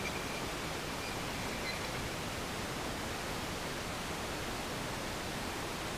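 Steady, even hiss of background noise with no distinct event in it.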